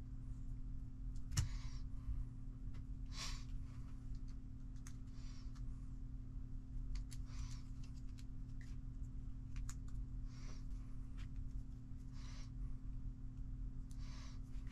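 Hands handling small plastic RC kit parts and pliers: a sharp click about a second and a half in and soft scuffs every couple of seconds, over a steady low hum.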